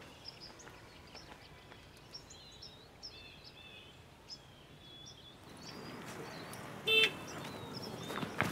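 Quiet outdoor ambience with small birds chirping. About five and a half seconds in, a wash of street traffic noise rises, with a short honk about seven seconds in.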